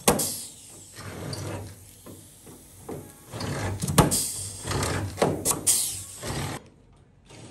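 Air-powered pop-rivet gun setting rivets through a galvanized steel capping strip into a Land Rover body tub: bursts of air hiss, each ending in a sharp crack as a rivet mandrel snaps, several times over.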